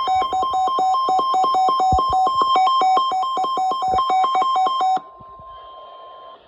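Weather alert radio alarm: loud, rapid beeping that alternates between two pitches and stops abruptly about five seconds in. Beneath it, NOAA Weather Radio's steady 1050 Hz warning alarm tone carries on more quietly for over a second, the signal that opens a warning broadcast.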